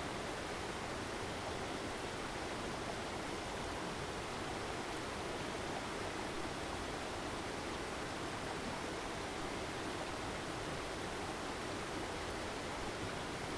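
Room tone of an empty indoor swimming hall: a steady wash of noise from water circulation and ventilation, with no distinct events.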